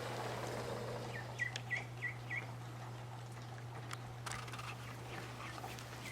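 Cayuga duckling peeping: a quick run of four short, high peeps about a second in.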